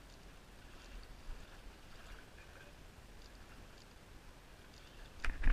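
Faint outdoor background with a few scattered light ticks. Near the end comes a sudden loud thump and rustle.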